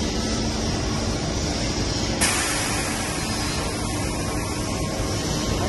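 Steady hum of workshop machinery, with a sudden hiss of compressed air starting about two seconds in and carrying on, typical of the pneumatic system on a copy shaper with air-driven pressing cylinders.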